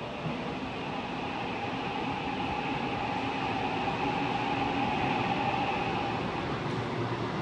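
Seoul Subway Line 6 train approaching through the tunnel to run through the station without stopping: a rumble growing louder, with a steady whine over it.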